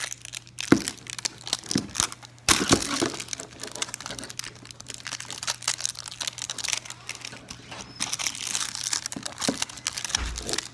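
Foil wrapper of a chocolate surprise egg crinkling and tearing as it is unwrapped by hand, with sharp crackles and a louder burst about two and a half seconds in.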